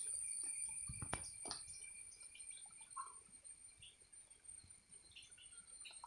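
Faint outdoor ambience: a steady high-pitched insect drone with scattered short soft chirps. Two brief knocks come about a second in.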